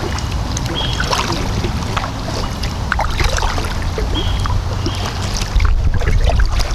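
Kayak paddling: the paddle dips and water splashes and drips in many small ticks over a steady low rumble that grows louder near the end. A short high note sounds three times, a few seconds apart.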